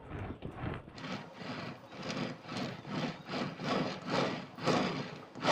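Plastic scraper rubbing along the whipped-frosting side of a cake as the turntable is turned, a rhythmic scraping of about two to three strokes a second that grows stronger about a second in.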